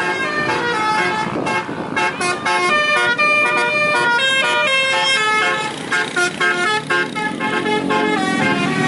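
Telolet musical car horn playing a quick tune of changing notes, several pitches sounding together, breaking into short choppy blasts past the middle.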